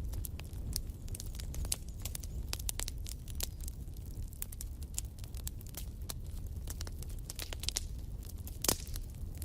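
Wood fire crackling in a fireplace: irregular sharp pops and snaps over a low, steady rumble of the flames, with one louder pop near the end.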